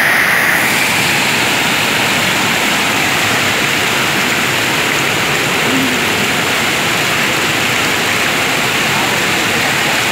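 Floodwater pouring over a weir and churning into white water, a loud, steady rushing with no let-up.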